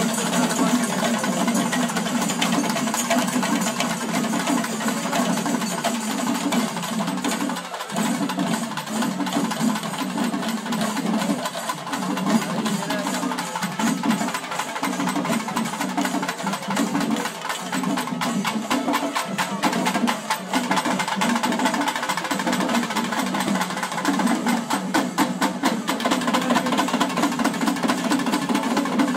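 Festival percussion: drums beaten in fast, dense strokes with cymbals ringing over them, accompanying a kavadi procession.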